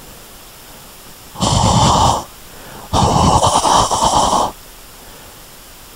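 Two wet, squishy squelches of hands pulling out of a pile of poo, the second longer and crackly.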